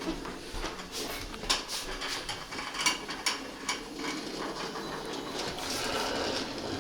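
Sharp clicks and knocks of toy train pieces being handled on a wooden track, followed by a steady whir of a small battery-powered toy train motor from about halfway on.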